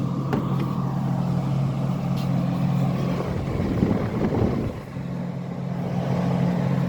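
Amana PTAC heat pump running in heat mode, a steady low hum from the unit. There are a few faint clicks in the first couple of seconds, and a short burst of rustling noise about three and a half seconds in.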